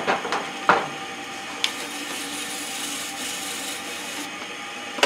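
Bristle brush scrubbing against the freshly textured end grain of a wood blank spinning on a lathe: a steady hiss from about a second and a half in until about four seconds. A few sharp knocks come just before it, over the steady hum of the running lathe.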